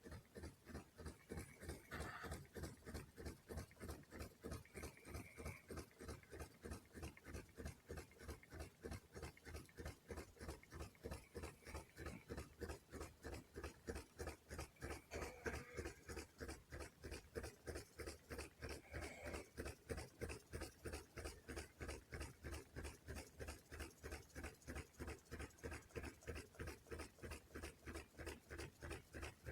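Faint, steady rhythmic knocking from a vehicle, about three to four beats a second, with a clip-clop sound like hoofbeats.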